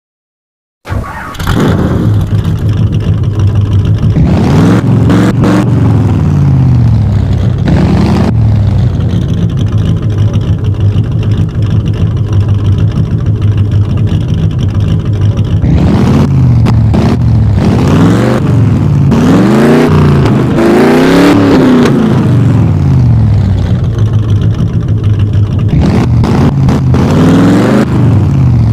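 Race car engine sound effect, cutting in about a second in and running loud and continuous, revving up and down over and over so its pitch repeatedly rises and falls.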